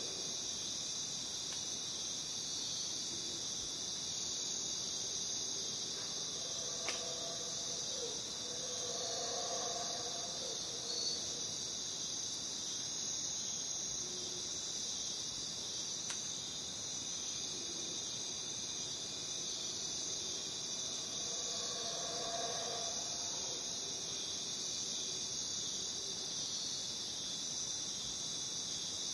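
Dense, steady, high-pitched chorus of jungle crickets trilling without a break. Fainter, lower calls swell in the background twice, about a third of the way in and again past two thirds.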